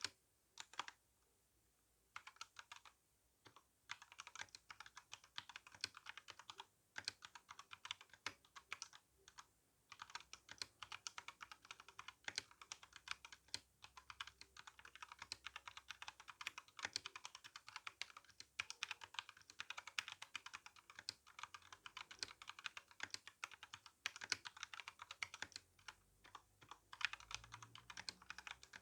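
Typing on an RK61 mechanical keyboard with brown tactile switches and GSA keycaps: fast runs of key clacks broken by short pauses.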